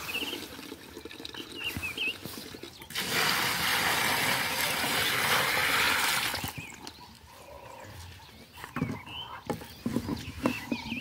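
Water poured from a plastic bucket into a plastic basin: a steady splash starting about three seconds in and stopping after three and a half seconds. A few light knocks follow near the end.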